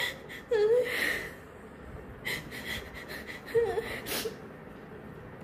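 A woman crying quietly through a face mask: sniffles and shaky breaths, with a couple of brief whimpers.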